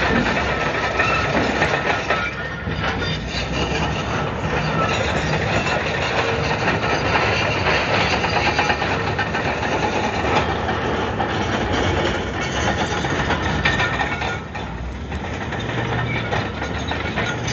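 Komatsu D155AX-7 crawler bulldozer working, its diesel engine running steadily under constant clattering and knocking from the steel tracks and rock.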